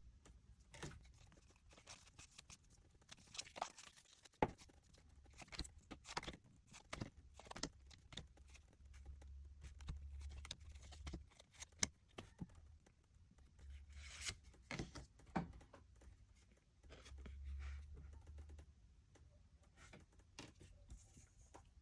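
Faint tearing and crinkling of a foil Pokémon booster pack being opened by hand, with scattered light clicks and scrapes of cards being handled.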